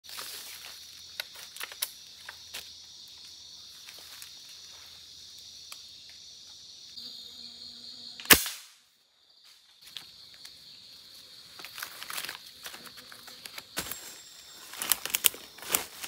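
Steady high-pitched insect chorus in forest with scattered small snaps, broken about halfway through by a single sharp gunshot, the loudest sound, after which the sound drops out briefly. Near the end, rustling and crackling through dry leaf litter.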